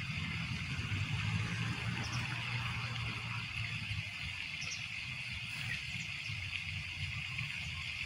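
Lake shore ambience: water lapping steadily, under a low hum that is strongest in the first half.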